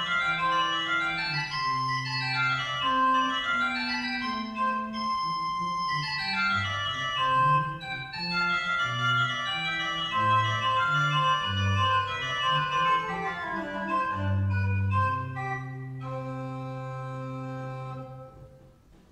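Organ playing a closing voluntary: fast rising and falling runs over a moving bass line, ending on a quieter held chord that fades away near the end.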